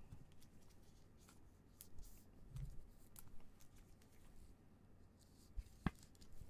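Quiet handling of trading cards and rigid clear plastic card holders: faint rustles and light taps, a soft thud about two and a half seconds in, and a sharper click near the end.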